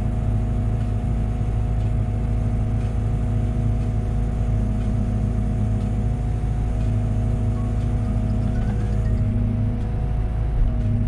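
Diesel engine of a Liebherr 914 Compact excavator running steadily, with a faint rising whine near the end.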